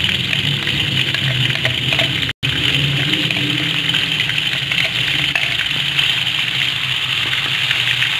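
Blended spice paste and ground chilli sizzling in hot oil in a wok: a steady frying hiss over a low hum, cut off for an instant about two seconds in.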